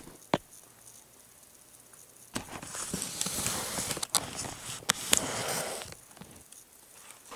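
Handling noise from a tablet being picked up and repositioned: a single knock just after the start, then from about two seconds in, some four seconds of rustling and scraping against the device with several sharp clicks.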